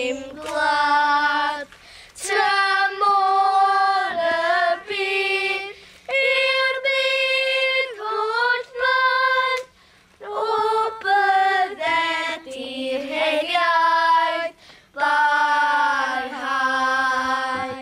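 A small group of children singing together in unison, unaccompanied, in phrases broken by short pauses for breath.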